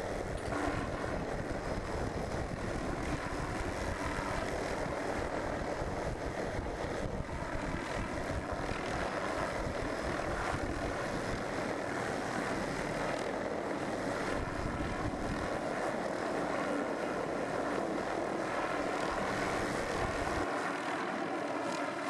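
Steady, even noise of a helicopter hovering close by, its engine and rotor running without change, with wind rumbling unevenly on the microphone.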